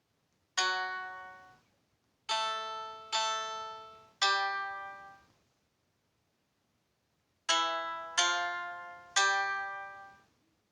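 Single plucked-string notes from a synthesizer, sounded one at a time, each ringing out and fading within about a second: one note, then three, then after a pause of a few seconds three more.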